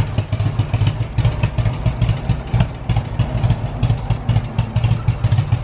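1967 Triumph TR6C Trophy's 650 cc parallel-twin engine idling after a cold start, with a steady, even train of exhaust pulses.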